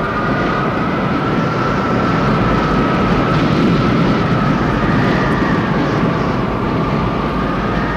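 Tornado wind howling: a loud, steady roar with a thin whistle on top that drifts slowly upward.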